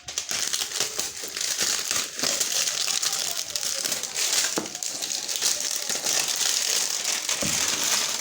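Plastic packaging crinkling and crackling steadily as it is handled and unwrapped.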